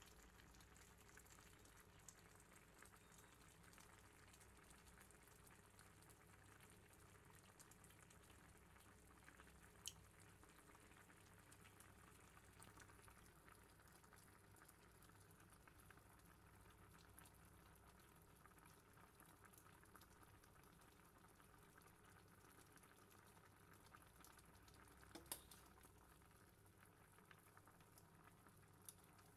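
Laksa curry broth boiling faintly in a pot on the stove, a low steady bubbling with a couple of sharp ticks, one about ten seconds in and a few near the end.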